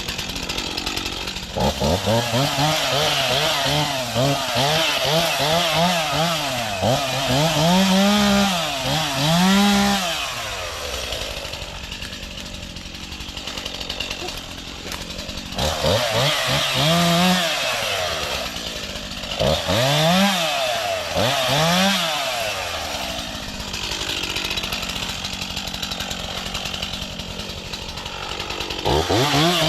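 Stihl chainsaw with an 18-inch bar, revved up and down in bouts while cutting small trees. It drops back to a lower, quieter running speed twice, around 11 s and again around 23 s, before revving up again near the end.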